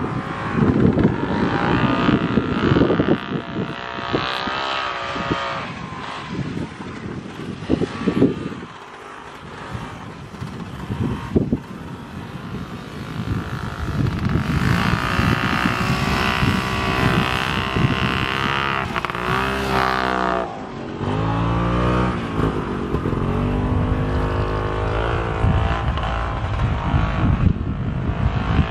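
Safari 309 snowmobile's two-stroke engine running as it crosses the field, its pitch rising and falling as the throttle opens and closes. It fades for a few seconds about a third of the way in, then comes back loudest with sweeping revs past the middle.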